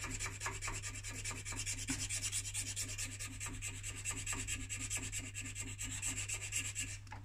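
Flat hand file rasping across a pipe stem held in a lathe chuck, in quick short strokes at about four a second, over a steady low hum. The strokes pause near the end.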